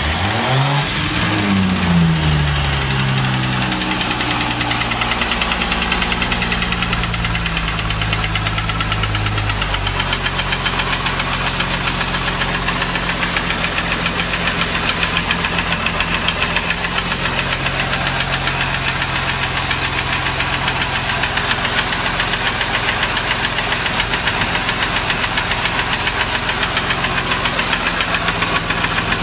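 MerCruiser 4.3LX GEN+ V6 boat engine running just after starting. Its speed flares and falls over the first few seconds, steps down about ten seconds in, then settles into a steady idle.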